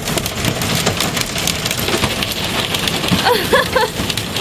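Hail and heavy rain hitting a sailboat's deck and cabin windows, heard from inside the cabin as a dense, steady clatter of many small impacts.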